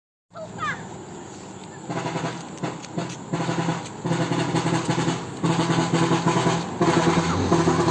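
Large 4-foot air horns on a vehicle sounding a run of blasts, several steady tones switching on and off in a rhythmic pattern with a rapid flutter, growing louder toward the end.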